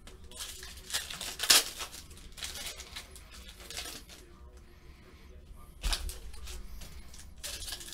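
Foil wrappers of O-Pee-Chee Platinum hockey card packs crinkling and tearing open while trading cards are handled and set down, in irregular rustles loudest about a second and a half in and again near six seconds.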